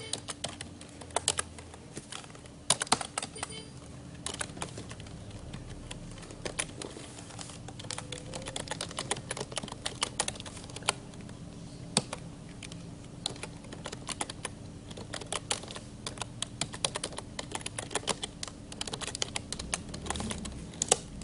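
Typing on a computer keyboard: key clicks in quick, irregular runs, over a faint steady hum.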